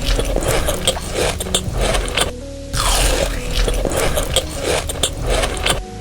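Close-miked eating: crunchy biting and chewing with scraping, a dense run of crackles and clicks. Soft steady music runs underneath, and the crunching stops abruptly near the end.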